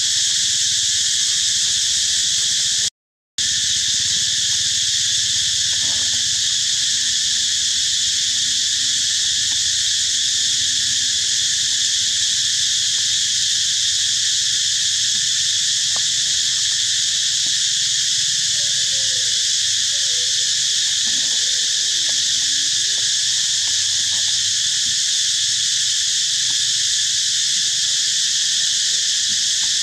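A steady, loud chorus of insects shrilling in several high bands, which cuts out completely for a moment about three seconds in. A few faint, wavering squeaks sound about two-thirds of the way through.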